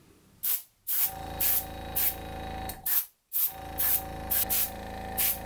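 An airbrush spraying diluted white paint in short hisses, about two a second, over the steady hum of a VEVOR mini airbrush compressor. The compressor stops for a moment about three seconds in, then runs again.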